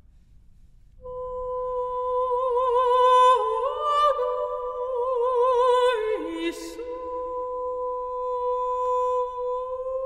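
Mezzo-soprano singing unaccompanied, starting about a second in and holding long notes with a wide vibrato. There is a brief step up in pitch partway through and a short breathy consonant a little past the middle.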